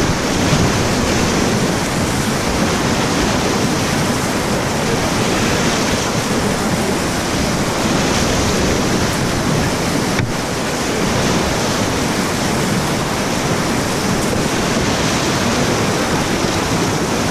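Whitewater rapids rushing loudly and steadily around a kayak, heard right at the water's surface, with foaming water washing over the bow.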